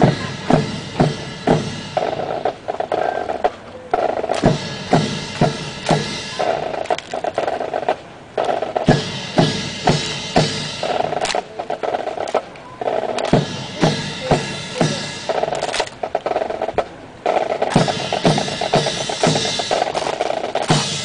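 Marching snare drums and bass drum playing a drill cadence: sustained rolls alternating with runs of sharp single strikes.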